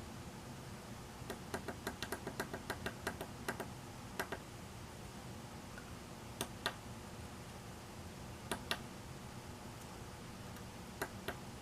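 Small pushbuttons on a Dutchtronix AVR oscilloscope clock kit clicking as they are pressed to step and set the time: a quick run of about a dozen presses, then pairs of clicks every two seconds or so.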